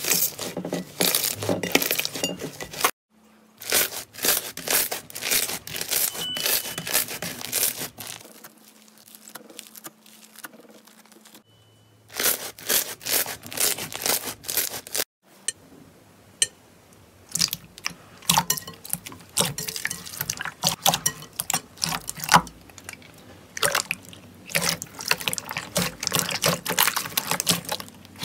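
Hands kneading, squeezing and stretching slime, including a foam-bead slime, with wet squishing and many quick clicks and pops of trapped air. It runs in stop-start takes, with a quieter stretch about a third of the way through.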